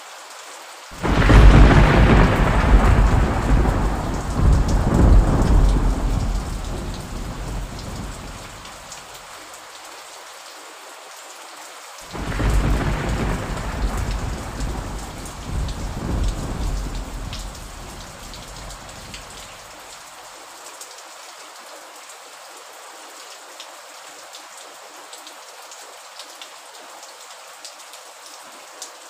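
Steady rain hissing with two claps of thunder, the first about a second in and the loudest, the second about twelve seconds in; each starts suddenly and rumbles away over several seconds.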